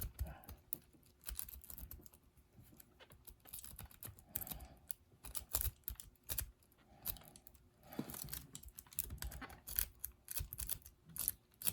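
Lock pick and tension tool working the pins inside a small Regal lock's keyway: irregular small metallic clicks and scrapes.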